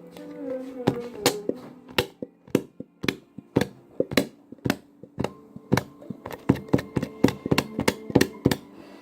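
Fluffy shaving-cream slime being squished and worked by hand, giving a run of sharp clicks and pops, about two to three a second, coming faster and louder in the second half.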